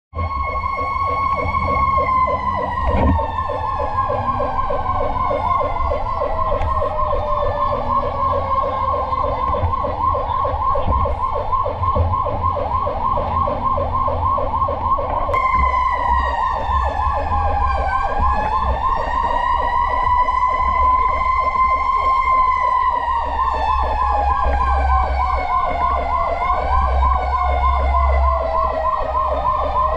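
Several fire truck sirens sounding at once. One is a slow wail that glides down in pitch over several seconds and then rises and falls again; under it runs a fast pulsing warble, with a low rumble beneath.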